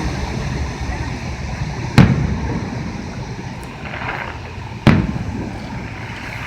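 Fireworks going off: two sharp, loud bangs about three seconds apart, each trailing off in a short echo, over a steady low background rumble.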